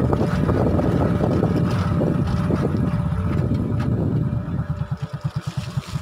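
Vehicle on the move with heavy wind rumble on the microphone. About four seconds in the rumble drops away and the engine's quick, even pulsing at low revs comes through.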